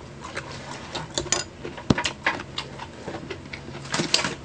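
Eating sounds: irregular clicks and taps of a plastic spoon against a clear plastic takeaway food tray, with close-miked chewing.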